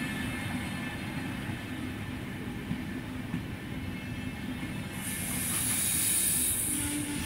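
Deutsche Bahn Intercity passenger coaches rolling past close by, a steady rumble of wheels on the rails. A high hiss joins about five seconds in, and a steady low tone comes in near the end.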